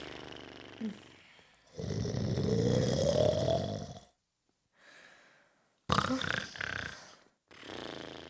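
A person snoring: a run of separate snore breaths, one every second or two. The longest, about two seconds in, rises in pitch, and another starts abruptly about six seconds in.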